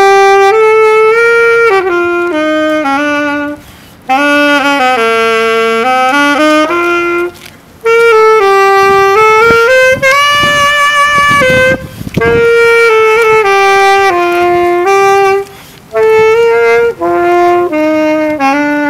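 Solo saxophone playing a Christmas tune, one melody line in phrases with short pauses for breath between them.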